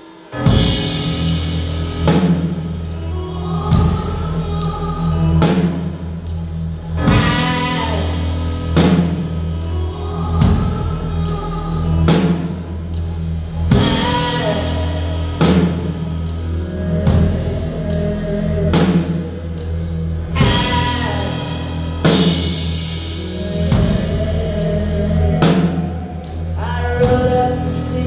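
A live band playing: a drum kit keeping a steady beat, acoustic guitar and keyboard, with a man singing. The full band comes in sharply right at the start, after a brief quiet moment.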